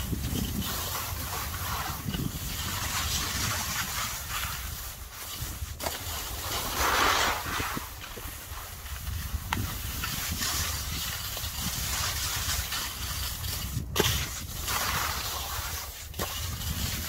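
Skis sliding and scraping over packed snow through a series of turns, in swells of hiss, with wind rumbling on the microphone throughout. A few sharp knocks are heard, the loudest about 14 seconds in.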